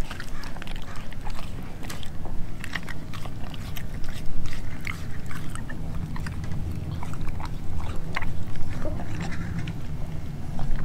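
Doberman chewing and biting a piece of raw meat, with irregular wet smacks and clicks of the teeth.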